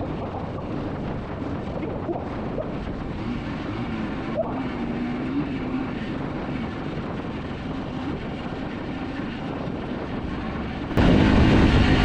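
Motorcycle on the move: steady engine drone under wind and road noise on the camera's microphone. About eleven seconds in the sound suddenly becomes much louder.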